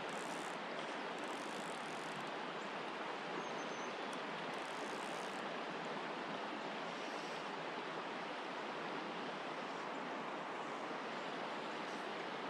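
Creek water running steadily over a rocky riffle: a constant, even rush of flowing water.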